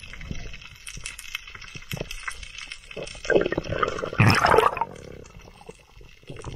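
Underwater water noise on the diver's camera as a freediver swims up toward the surface, with scattered clicks and a louder burst of water noise about three to four and a half seconds in.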